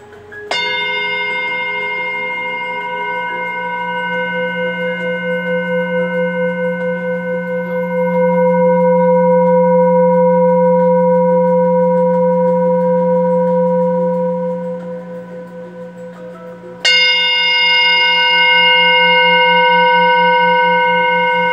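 Tibetan singing bowl struck with a felt-covered mallet, ringing with a low hum and several higher steady tones that waver in a slow pulse. The tone swells over several seconds and then fades about 15 seconds in. The bowl is struck again about 17 seconds in and rings on.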